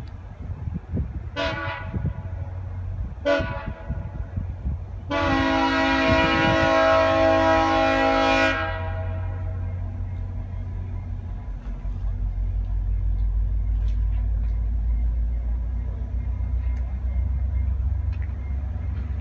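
Diesel locomotive horn of an approaching VIA Rail passenger train, sounding several notes at once: two short blasts, then one long blast of about three seconds. Under the horn runs the low rumble of the train, which grows louder in the second half.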